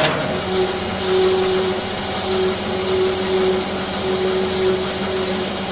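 Tensile testing machine's drive running with a steady mechanical hum, just after the slackline webbing has broken under load. The last of the sharp bang from the break dies away at the very start.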